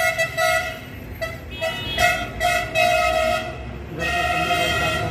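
Road vehicle horn honking in several blasts of varying length over a steady rumble of busy traffic.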